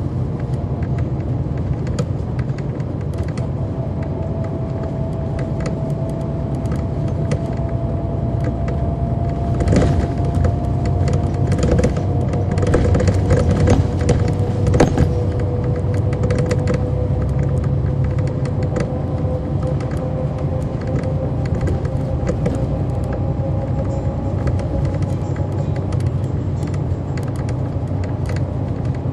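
A 2011 NABI 40-SFW transit bus under way, its Cummins ISL9 straight-six diesel running with a steady low rumble and a faint whine that slowly rises in pitch. Frequent small clicks and rattles throughout, with a few sharper knocks around the middle.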